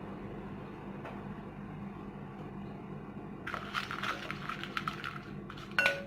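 A spoon stirring cashews, raisins and grated ginger in hot ghee in a bowl: a run of short scraping clicks starting a little past halfway, ending in a sharp ringing clink of the spoon against the bowl, over a low steady hum.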